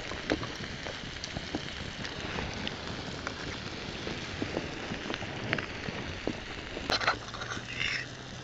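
Open wood campfire crackling, with scattered small pops over a steady hiss, and a brief louder noise about seven seconds in.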